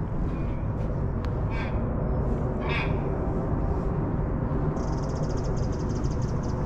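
Steady low outdoor city rumble, with two short, harsh bird calls about one and a half and three seconds in, and a rapid high chattering over the last two seconds.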